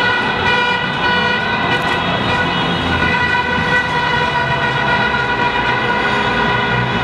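Celebratory vehicle honking: a horn held down in one long, steady, unbroken blare at a single pitch, over a din of street noise.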